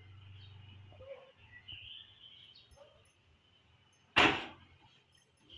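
Cloth-covered steel pot set onto a gas stove, with faint handling sounds and then one brief, loud clatter about four seconds in that fades within half a second.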